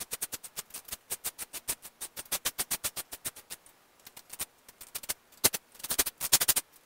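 Rapid ratcheting clicks, about seven a second, as a mechanism on the head of a Bridgeport milling machine is worked by hand; they thin out past the middle, then come in a quick flurry near the end.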